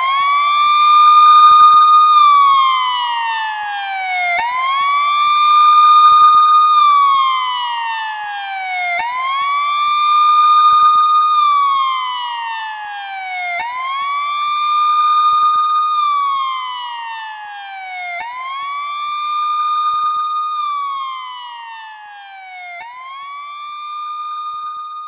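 Police car siren sounding a slow wail, about six cycles, each rising quickly, holding at the top and falling slowly, roughly every four and a half seconds. It grows gradually fainter toward the end.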